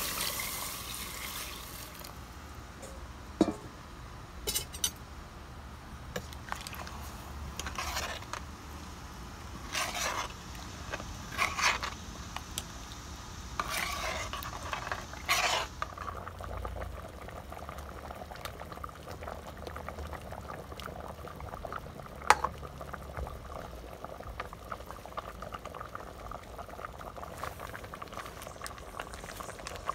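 Liquid poured into a hot stainless steel pot of sautéed ingredients, hissing for a second or two, then a metal ladle scraping and knocking against the pot as the soup is stirred from the bottom. Under it is a steady faint bubbling of the soup cooking.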